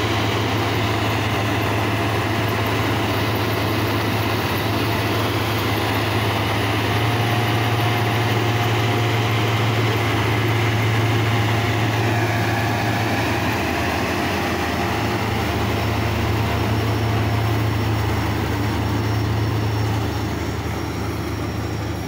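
Rice combine harvester's diesel engine and threshing machinery running steadily, with a strong low hum, getting a little quieter near the end.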